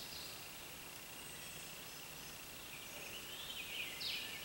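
Quiet woodland ambience: birds calling faintly, louder about three to four seconds in, over a steady high, thin tone.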